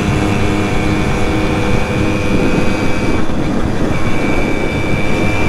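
Simson moped's 50 cc two-stroke engine running steadily while riding, with wind noise. About halfway through, the engine's steady tone blurs into a rougher, noisier sound.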